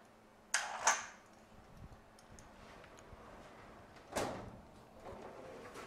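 Two sharp clicks of metal hardware about a second in and a duller knock about four seconds in, as the overhead hoist's snap hook and quick link are handled with the winch motor off.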